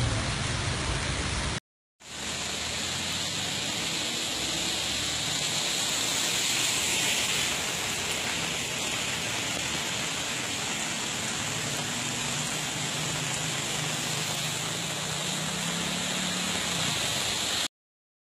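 Heavy rain, then after a short break a steady rush of rain and water on a flooded road. Near the end a low engine hum from cars driving through the floodwater.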